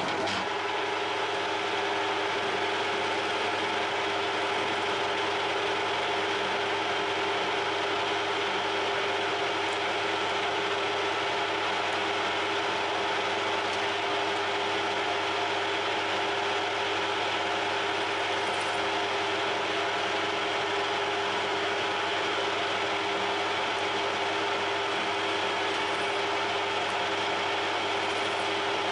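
Metal lathe switched on and running steadily with a mechanical whine, its chuck turning a carbon steel bar while the end is faced off.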